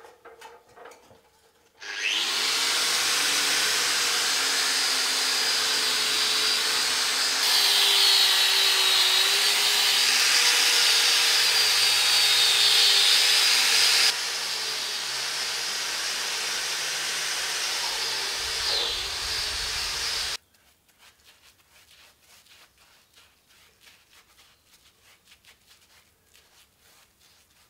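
Angle grinder grinding rust and flaking scale off an old steel I-beam, its motor whine wavering as it is pressed against the metal. It stops abruptly about two-thirds of the way through, leaving only faint scattered ticks and scratches.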